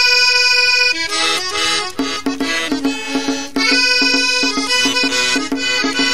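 Accordion playing the instrumental opening of a Sesotho famo song. It holds one long chord for about a second, then plays a quick, rhythmic run of repeated notes.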